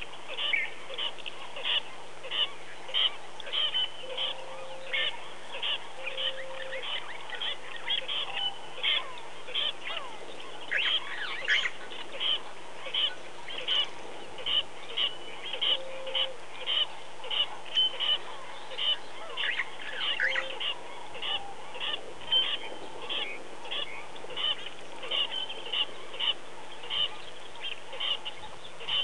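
A small animal calling over and over, a short high call repeated steadily about twice a second, with a few faint gliding whistles among the calls.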